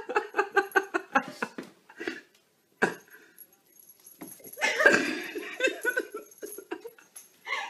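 People laughing: a quick run of laugh pulses over the first second and a half, then another burst of laughter about halfway through.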